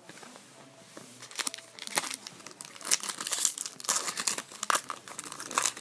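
Foil trading card pack being torn open and its wrapper crinkled by hand, a dense crackling that gets busier and louder about a second and a half in.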